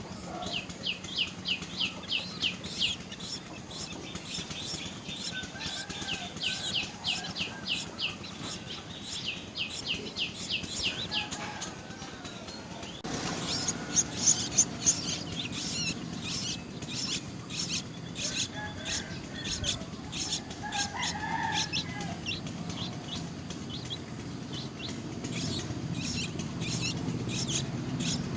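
Birds chirping: runs of rapid, high, repeated chirps, several a second, with softer, lower calls in between.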